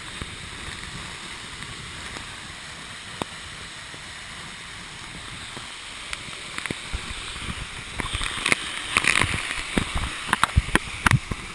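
Waterfall pouring down in a steady rush, heard from underneath the falls. From about halfway in, sharp irregular knocks and splashes close to the microphone join it, growing busier and louder near the end.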